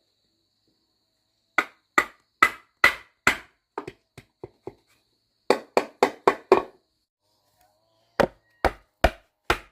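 A hand tool chopping wood: sharp strokes in runs of four or five, about two to three a second, with short pauses between runs and a few lighter taps after the first run.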